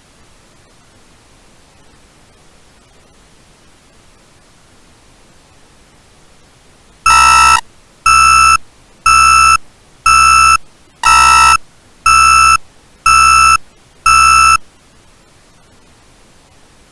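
Faint steady hiss, then eight loud, buzzy electronic alert beeps, each about half a second long and about one a second, starting about seven seconds in. They are the alert tone of an emergency alert broadcast.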